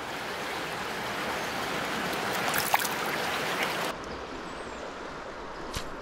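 Creek water flowing steadily over a rippled run. About four seconds in the sound turns suddenly duller, and there are a couple of faint clicks.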